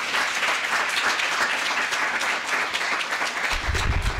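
Lecture-hall audience applauding steadily, with a low rumble coming in near the end.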